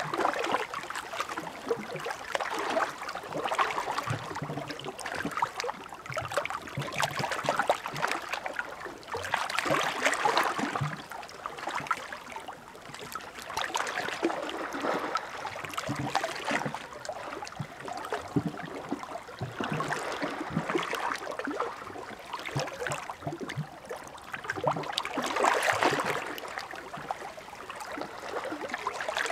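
Small sea waves washing onto the shore and draining back, swelling and easing every few seconds with a fizzing, trickling wash.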